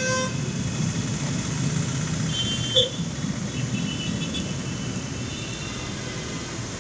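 Slow city traffic in heavy rain: engines running and tyres hissing through water on the road, under a steady wash of rain. A short horn sounds right at the start, and brief high-pitched beeps come about two to three seconds in.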